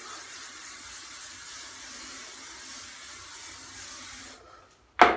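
Aerosol hairspray can hissing in one long, steady spray that stops about four seconds in. Just before the end comes a single sharp clack, the loudest sound.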